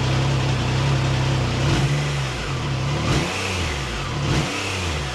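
Triumph Tiger Sport 660's three-cylinder engine idling steadily, then revved in a few short throttle blips from about two seconds in, its pitch rising and falling each time.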